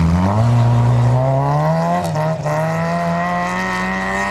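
Honda rally car's engine accelerating hard away, its pitch climbing, with a short break for a gear change about two seconds in before it climbs again.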